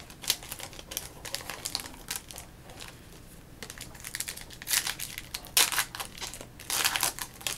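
Hockey card pack wrapper being torn open and crinkled in the hands, in irregular crackling bursts, the loudest three in the second half.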